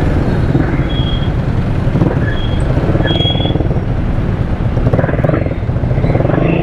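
Motorcycle riding through slow city traffic: engine running with wind and road noise on the rider's helmet microphone. A few short high beeps sound about one, two and a half and three seconds in.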